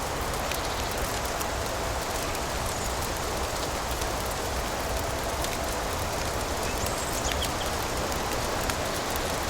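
Steady rain ambience with a low rumble and many fine, sharp crackling ticks, as from a fireplace. A faint, brief high chirp comes about seven seconds in.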